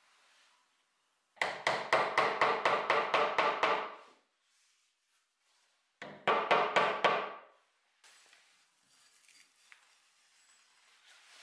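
Mallet tapping a glued wooden dowel handle through a wooden rocking horse's head to drive it home. The blows come in quick runs of about five a second, a dozen and then about six, each with a short ringing note from the wood.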